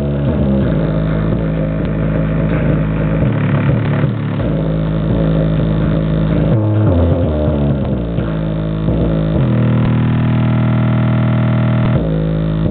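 Loud bass-heavy music played through a homemade subwoofer in an enclosure made from a vacuum cleaner box. Deep bass notes change every second or two, and a long low note is held for a couple of seconds near the end.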